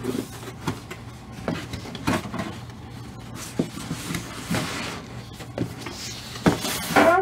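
Lid of a large doll box being lifted off, set back down and shifted into place: a string of knocks and scraping as the lid rubs against the box.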